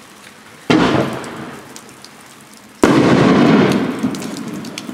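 A 3-inch, 9-shot fireworks finale cake firing: two loud booms about two seconds apart, each sudden and then trailing off over a second or two with scattered crackle.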